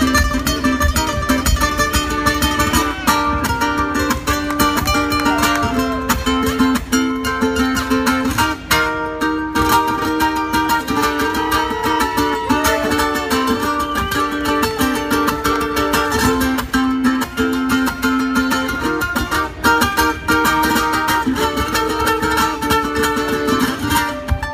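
Two ukuleles played together as an instrumental duet: a plucked melody over rhythmic strumming.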